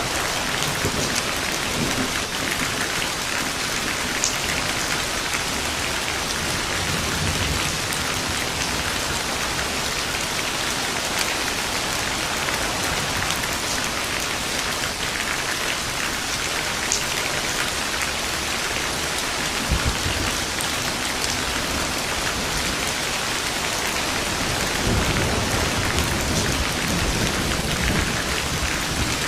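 Steady rain falling, with low thunder rumbling now and then and a longer rumble near the end.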